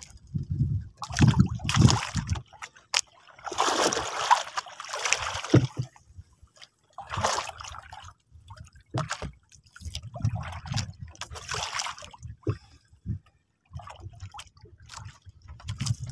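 Sea water sloshing and splashing against the hull of a small outrigger boat in irregular bursts of a second or two, with short quiet gaps between them.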